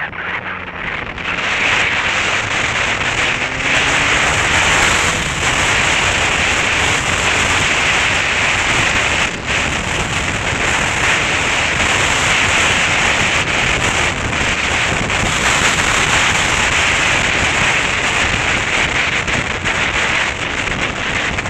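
Heavy wind noise rushing over the microphone of a moving motorcycle, a steady rush that grows louder about two seconds in.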